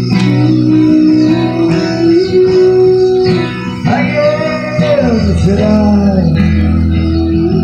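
Live band music led by guitar, with held and bending notes; a deep bass line comes in strongly about five seconds in.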